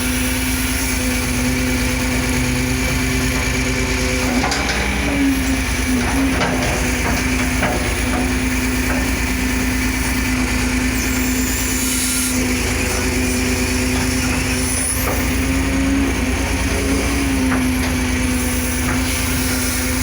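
Caterpillar 330 CL excavator's diesel engine running steadily under working load. Its pitch sags and recovers briefly twice, with scattered knocks and clanks between about four and eight seconds in.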